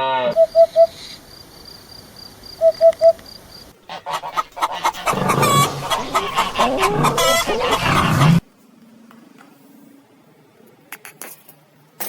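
A run of different animal calls: two groups of three short high chirps, then a few seconds of loud, mixed, overlapping calls that stop abruptly, followed by a few quiet seconds.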